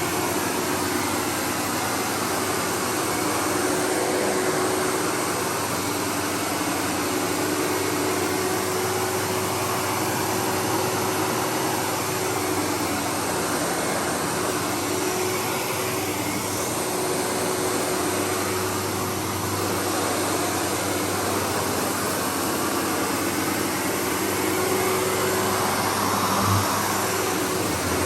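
Windsor SR15 upright vacuum cleaner running steadily on berber carpet: a continuous motor whine and air rush with a faint steady hum, swelling slightly and easing as it is pushed back and forth.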